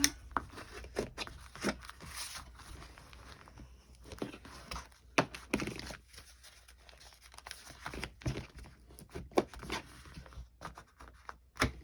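Bone folder scraping along the fold of a paper booklet, with paper rustling and crinkling between irregular short strokes.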